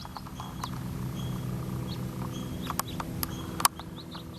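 Small birds chirping with short, repeated high notes, over a steady low hum. The hum stops abruptly with a sharp click near the end, and a few other clicks fall shortly before it.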